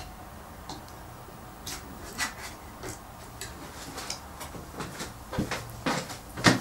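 Scattered soft knocks and clicks of things being handled in a small room, with a few louder knocks near the end.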